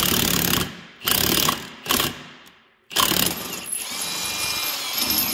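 Cordless impact wrench hammering: three short bursts, then a longer steady run from about three seconds in. It is driving the threaded rod of a bearing press to draw a new drive-shaft bearing into its housing.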